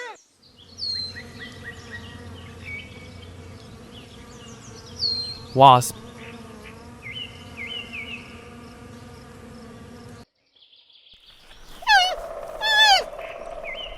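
A wasp buzzing in a steady drone for about ten seconds, with faint bird chirps above it. After a short break, a run of loud, sharp, warbling animal calls begins near the end.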